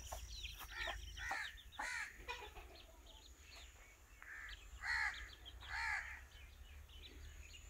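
A brood of newly hatched chicks peeping in quick, small high calls, with a crow cawing a few times over them, louder twice around five and six seconds in.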